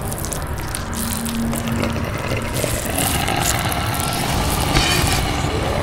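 Film sound effects: a steady low rumble with many short crackles and clicks over it. A faint tone rises in about three seconds in.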